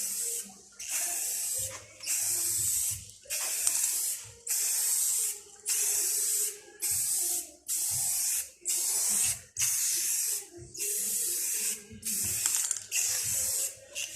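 Aerosol can of Rust-Oleum rust-blocking spray paint sprayed in short bursts, about a dozen hisses with brief pauses between them, applied over surface rust on steel body panels.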